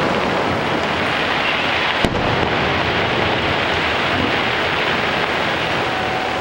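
Fireworks display: a steady rumble of overlapping bursts, with one sharp bang about two seconds in.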